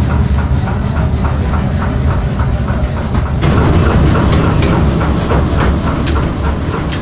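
Workshop machinery running: a steady low rumble with a rapid, even clatter of about five ticks a second. About three and a half seconds in, the sound turns rougher and noisier.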